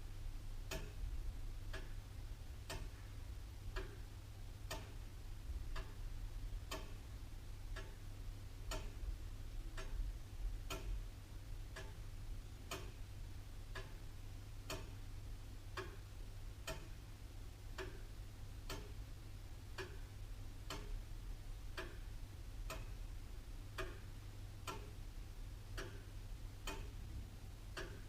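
Antique William Holliwell of Liverpool clock ticking steadily at about one beat a second, alternate beats louder in a tick-tock pattern.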